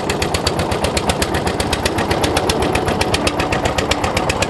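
Boat engine running steadily with a rapid, even knocking chug of about ten beats a second.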